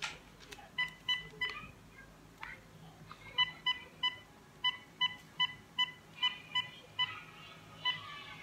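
Cordless home phone's keypad beeping as a number is dialled: three quick beeps about a second in, then about a dozen more in a run from about three and a half seconds, with one last beep near the end. Each is a short beep at one pitch.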